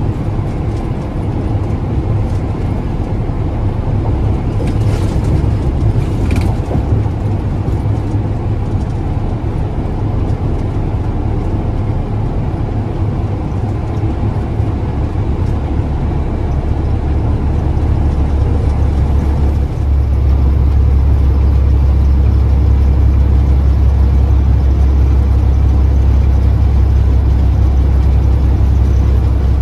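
Semi-truck's engine and road noise heard inside the cab while driving on the highway: a steady low drone that steps up louder about twenty seconds in.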